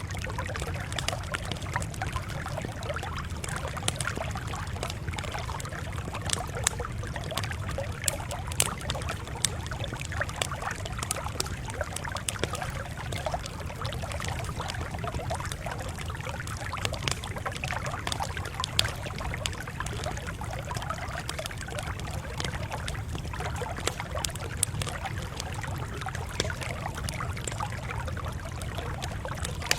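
Campfire crackling: frequent sharp pops and snaps over a steady low rumble.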